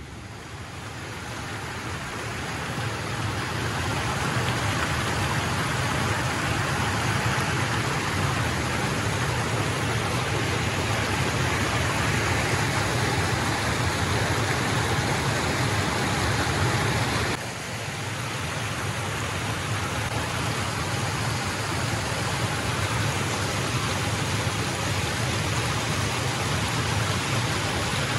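Water rushing over the steps of a low concrete weir, a steady hiss of falling water that builds over the first few seconds and dips briefly about two-thirds of the way through.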